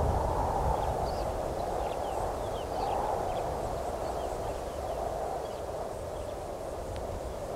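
Steady outdoor ambience, a hiss with a low rumble beneath, with faint, short high bird calls scattered through it.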